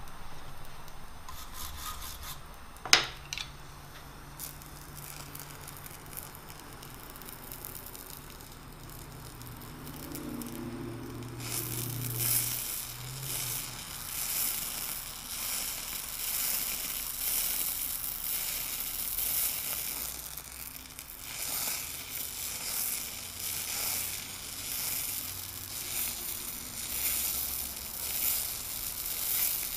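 Eutalloy Ultra Jet oxy-acetylene powder-spray torch hissing and crackling against the red-hot end of a transmission shaft, spraying metal overlay powder to build up the worn surface. The crackling hiss starts about eleven seconds in and rises and falls from then on. A single sharp click comes about three seconds in.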